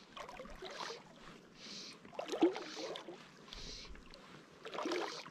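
Water lapping and sloshing against an inflatable float tube, in three irregular splashy bursts with the loudest about two and a half seconds in, over a softer hiss that swells and fades about once a second.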